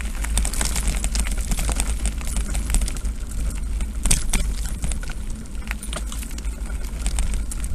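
Mountain bike being ridden over a rough dirt and gravel track, heard from the bike: a steady low rumble with dense, irregular clicking and rattling as the tyres run over stones and the bike shakes.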